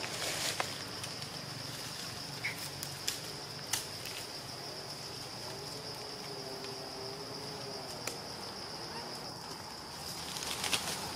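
Insects keep up a steady, high-pitched drone, with a few sharp clicks scattered through it.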